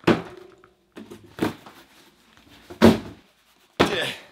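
Heavy cardboard cases of canned water set down and stacked on a wooden desk: about five dull thuds in four seconds, the last one drawn out with a scrape as a case slides into place on the stack.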